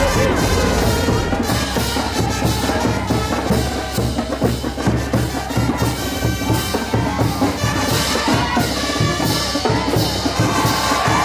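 Music with a steady beat and percussion.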